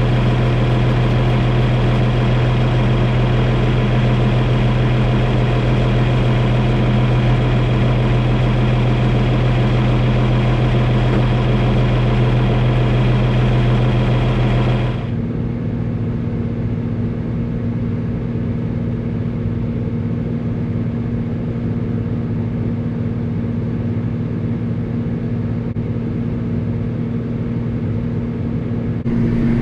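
Farm tractor engine running steadily at idle. About halfway through, the sound abruptly turns duller and a little quieter while the engine keeps running.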